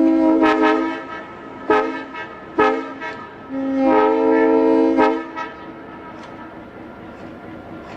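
Nathan M3 three-chime locomotive air horn sounding a chord. A held blast cuts off about a second in, two short toots follow, then a longer blast of about a second and a half ends near five seconds in. After that the train's steady rumble is left.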